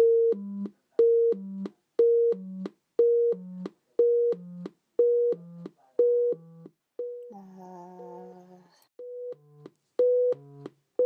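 Computer-generated sine-wave tones from an N-body planet simulation, with pitch set by each planet's position and direction of travel. Short pure notes repeat in a pattern about once a second: a high tone, quick stepping notes, then a low tone. About seven seconds in, several tones sound together as a held chord for a second and a half before the pattern resumes.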